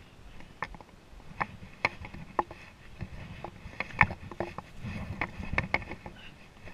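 Metal-tipped trekking poles clicking on rock and boots stepping on a rocky mountain trail during a climb: irregular sharp taps, the loudest about four seconds in, over the rustle of movement.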